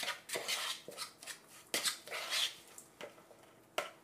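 Metal fork mixing raw seasoned ground beef in a plastic mixing bowl: irregular scrapes and taps of the fork against the bowl, with a short lull before a last sharp scrape near the end.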